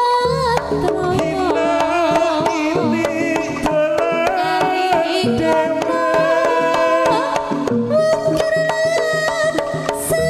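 Live Javanese jaranan music: hand drums beat a quick rhythm under a wavering, bending melody line and sustained ringing tones.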